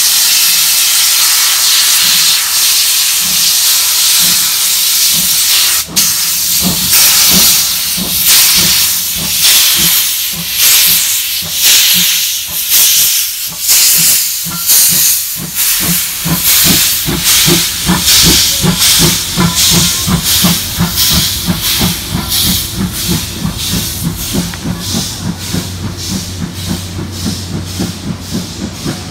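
JNR Class C56 No. 160 steam locomotive pulling a train with its cylinder drain cocks open. A loud steam hiss sets in suddenly, then exhaust chuffs grow stronger and quicken as it accelerates. The passenger coaches rumble past near the end.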